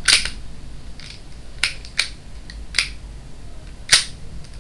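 Glock 17 pistol clicking as it is handled: five sharp clicks spread over a few seconds, the first and the last the loudest.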